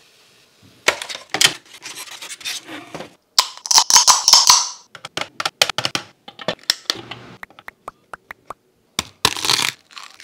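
Close-miked kitchen sounds in quick succession: food crackling and sizzling in hot oil, then a run of sharp light clicks and taps as eggs are set onto an electric egg cooker's rack, and a loud crackle of eggshell being cracked and peeled near the end.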